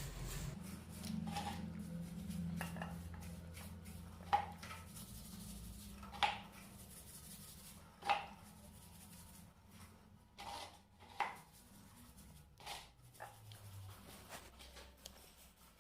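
Light metallic clicks and clinks every second or two, with faint rubbing, from hand work on a motorcycle drive chain being cleaned with petrol while the rear wheel is turned by hand.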